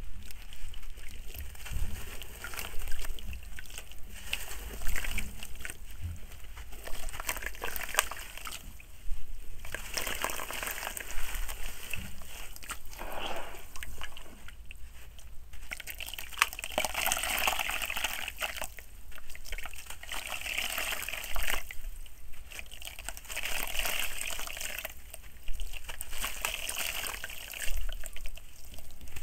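A gritty soil block crumbled by hand into a plastic basin of water, then swished and squeezed in it. First come fine crunching bits, then repeated bouts of sloshing and splashing.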